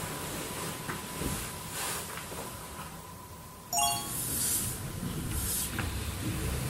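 A TV show's edited soundtrack over quiet sleeping-room footage: a soft hiss with faint swells of noise, then a short bright chime sound effect of several ringing tones about four seconds in.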